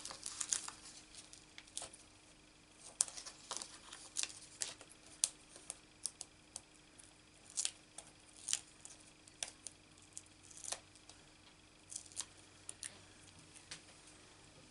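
Irregular light clicks and crinkles of paper and plastic backing as foam adhesive dimensionals are peeled off their sheet and pressed onto a cardstock piece.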